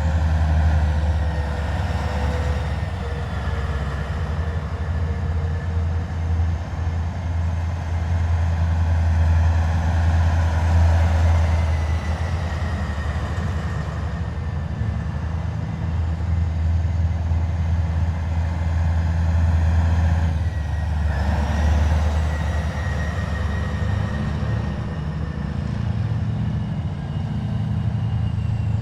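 A column of heavy military vehicles driving past, a steady low engine rumble that swells as each one passes, about a second in, around ten seconds in and again around twenty seconds in, with a faint whine sliding slowly in pitch.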